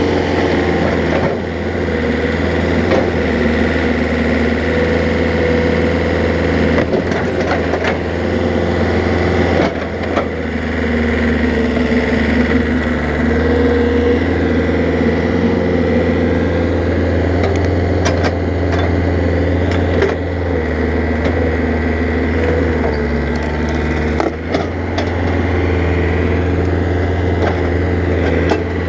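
Excavator's diesel engine running steadily, its pitch shifting a little as the hydraulics take load. A handful of sharp wooden cracks and knocks come through as the bucket works a burnt pine stump and its roots.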